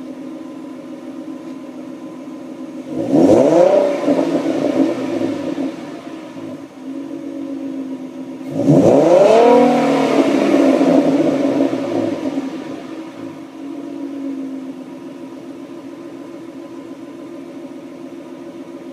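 2013 Roush RS Mustang's V6 on its stock Ford axle-back exhaust, idling and revved twice: a short rev about three seconds in, then a longer, louder rev near nine seconds that falls back to idle a few seconds later.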